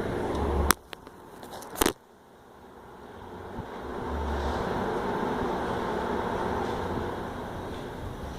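1970s Silmar ceiling fan running with a steady whir. Two sharp clicks about a second apart near the start, the sound drops away sharply at the first, then the whir builds back up over about two seconds and holds steady.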